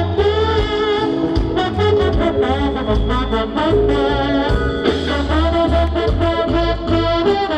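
Live band music with a trombone playing the lead line over electric bass, keyboards and guitar.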